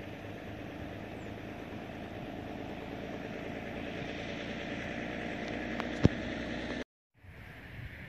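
Steady outdoor background noise with a low hum under it, a sharp click about six seconds in, then a brief total cut-out.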